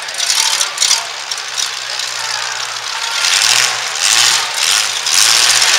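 Demolition derby trucks' engines running hard with a loud, rough roar that swells in surges about three seconds in and again near the end.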